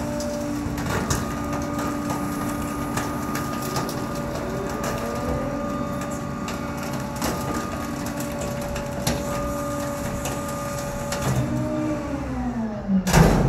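Bulk-item rear-loader garbage truck's hydraulic packer crushing a sofa in the hopper: a steady hydraulic whine over the running engine, with scattered cracks and snaps of the sofa's frame giving way. Near the end the whine falls in pitch and a loud clank sounds.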